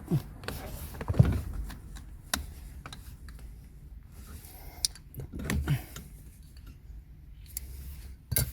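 Scattered small clicks and knocks of plastic and rubber as a Kia K9's push-button engine start switch is pried and pulled out of its dashboard housing by hand, the sharpest knocks about a second in and just before the end.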